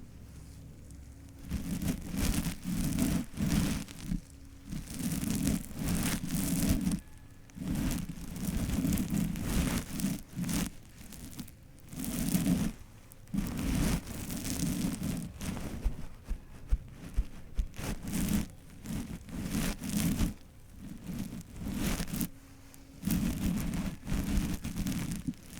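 Close-miked brush strokes through hair, coming in irregular rustling bursts of about a second each with short pauses between.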